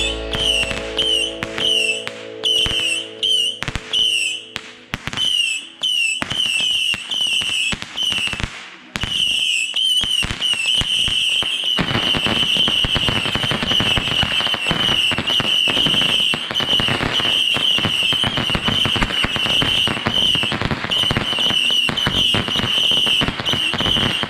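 Ground fountain firework burning with a high, wavering whistle over crackling. The crackle turns dense and continuous about halfway through, as the spark shower builds.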